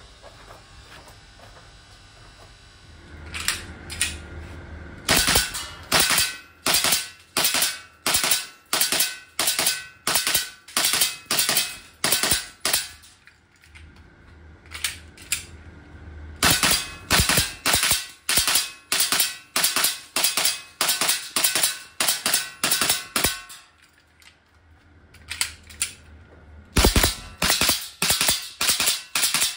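EMG F1 BSF 19 green-gas blowback airsoft pistol fired in rapid strings of sharp shots at about two a second, starting about three seconds in. Twice the firing breaks off for a few seconds with a few light clicks while the magazine is changed, then resumes.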